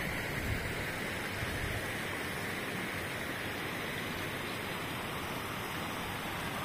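Overflow water from a full reservoir running shallow and fast over rocks: a steady rushing stream.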